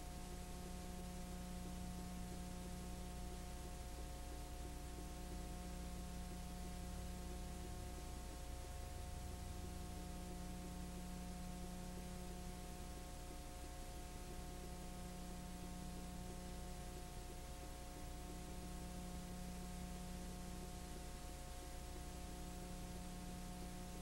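Steady electrical hum with a constant hiss and several faint steady tones, the background noise of a silent film transfer; a low part of the hum dips briefly every few seconds.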